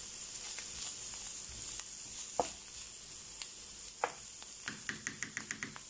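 Chopped mushrooms and olives sizzling in oil in a frying pan while a wooden spatula stirs them, scraping and knocking on the pan. A few single knocks, then a quick run of about eight taps near the end.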